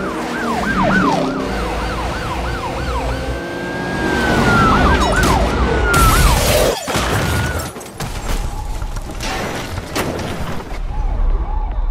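Police siren yelping in fast rising-and-falling sweeps, then drawing out into a long wail that falls away about halfway through. A loud noisy crash follows, with a sharp knock a few seconds later, over a steady low rumble and music.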